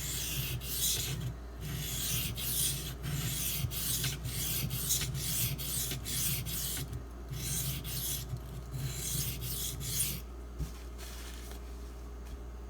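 SG2 (Super Gold) steel knife blade being stroked across a coarse Shapton Pro 320-grit whetstone: a gritty scraping in runs of strokes with brief pauses, stopping about ten seconds in.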